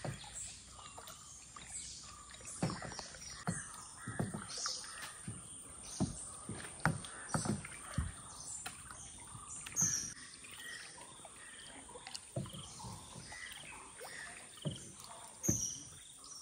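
Kayak paddles dipping and pulling through calm water, short irregular splashes and drips from several paddlers.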